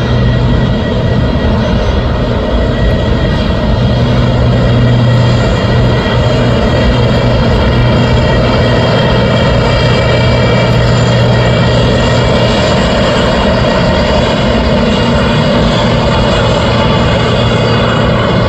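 Jet airliner's engines running loud and steady, a low hum under a spread of steady whining tones.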